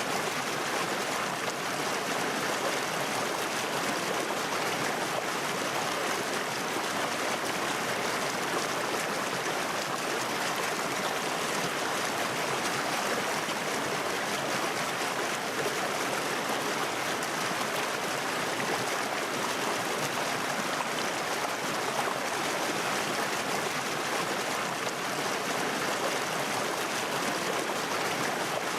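Water running in a stream, a steady rushing and trickling.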